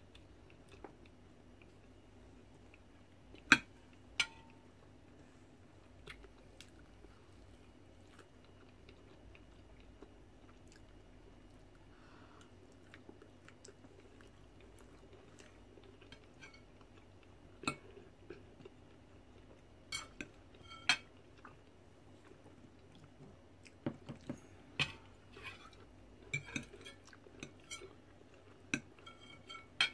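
Someone eating fried turkey with a fork: quiet chewing, broken by sharp clicks of the fork on the plate. The clicks are scattered and come more often in the second half.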